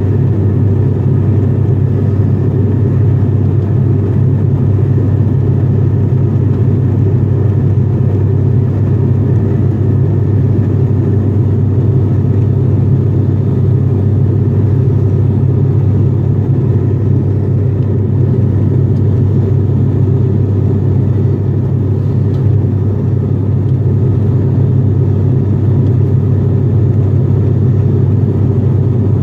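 Steady, loud low drone of an ATR 42-500's Pratt & Whitney PW127 turboprop engines and six-blade propellers in flight, heard inside the passenger cabin.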